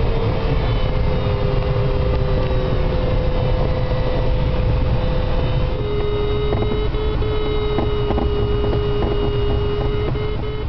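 Airflow noise inside a DG500 glider's cockpit in flight: a steady low rushing. Over it runs a steady thin tone that steps slightly lower in pitch about six seconds in, with a few faint ticks after that.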